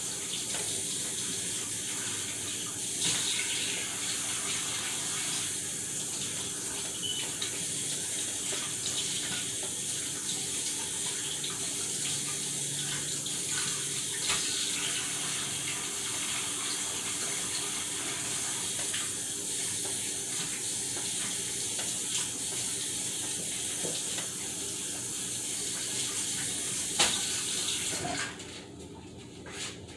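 Kitchen faucet running steadily into the sink while raw cube steak is rinsed under it, with a few light knocks. The water is shut off about two seconds before the end, leaving a few small clicks.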